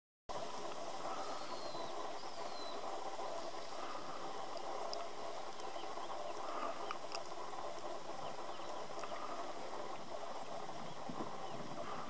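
Steady outdoor background hum, with faint, brief high bird calls in the first few seconds.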